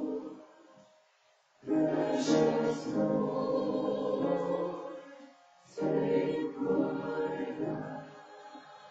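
Church choir singing an anthem in phrases with short pauses between them. A phrase ends just after the start, the voices come back in about a second and a half in, break off briefly past the middle, and come in again about six seconds in.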